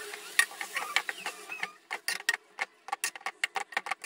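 Rapid, irregular sharp clicking, several clicks a second, which grows sharper and more distinct about two seconds in.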